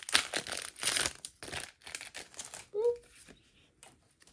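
Foil booster-pack wrapper being torn open and crinkled by hand, loudest in the first second and a half, then a few softer rustles. A short hummed voice sound about three seconds in.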